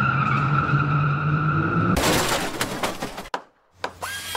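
Electronic intro sound effects: a steady low hum with a higher whine, cut about two seconds in by a loud burst of rapid crackling, then a moment of silence and a faint steady hum with a high tone and a few clicks near the end.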